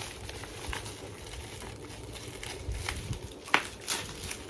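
Packaging being handled and opened by hand: a few scattered light clicks and taps, the sharpest about three and a half seconds in, over a low steady hum.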